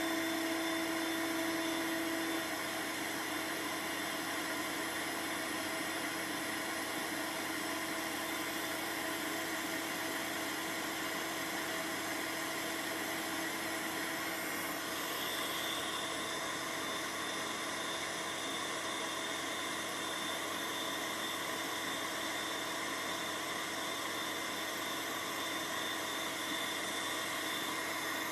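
Steady hum and hiss with a few constant tones underneath, with no music. A low tone drops back after about two seconds, and a faint high tone joins about halfway through.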